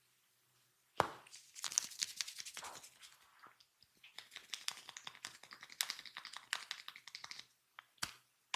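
Close-miked massage sounds: a sharp snap about a second in, then several seconds of dense crackling and rustling from hands rubbing, and two more sharp snaps near the end.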